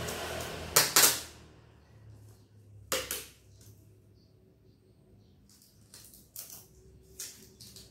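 Packing tape being pulled off its roll in two loud, sharp rips about a second in, then shorter rasps and clicks as the tape is cut with scissors and pressed down on a cardboard box.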